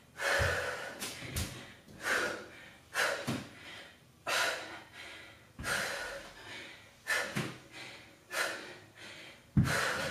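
A woman breathing hard from exertion, with sharp exhalations about every second and a half. A few dull thuds, the loudest near the end, are the dumbbells knocking on the floor mat.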